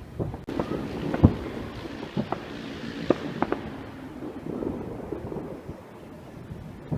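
Fireworks going off: a string of sharp bangs and cracks, the loudest about a second in, over a rushing noise that sets in suddenly near the start and fades away.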